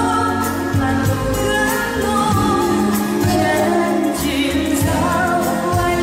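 A woman singing a Chinese-language pop song live into a microphone, over instrumental accompaniment.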